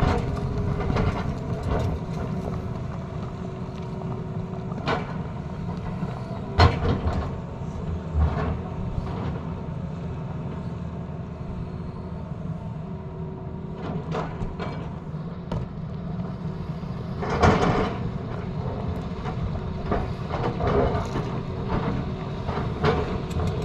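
Tata Hitachi excavator's diesel engine running steadily under work, with a few sharp knocks, the loudest about six and a half seconds in and a heavier one near eighteen seconds.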